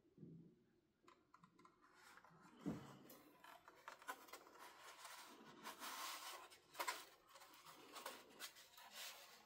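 Faint handling of a boxed router and its packaging: scraping and rustling with a scatter of small clicks and one dull thump about three seconds in.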